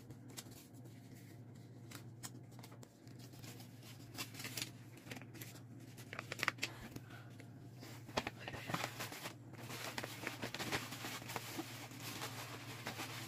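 Wrapping paper rustling, crinkling and tearing as a present is unwrapped: scattered crackles at first, busier in the second half, over a steady low hum.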